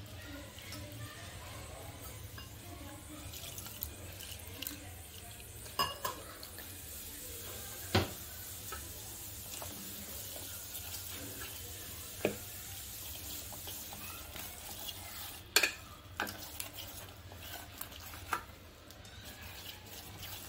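A spoon stirring wet gram-flour (besan) pakora batter in a stainless steel pot: a steady soft wet scraping, broken by several sharp clinks of the spoon against the pot's side.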